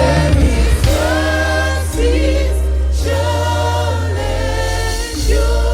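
Gospel choir singing a slow worship song in long held notes over a sustained low accompaniment that changes chord every second or so.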